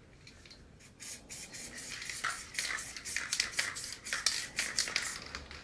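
Quick, irregular scratchy strokes from a hand working over a large paper stencil, several a second, starting about a second in.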